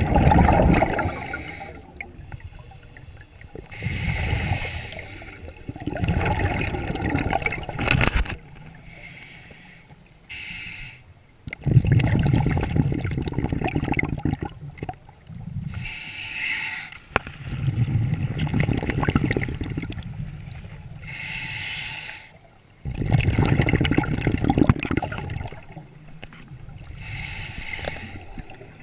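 Scuba diver breathing underwater through a regulator: a hissing inhale, then a rumbling rush of exhaust bubbles, repeating about every five to six seconds.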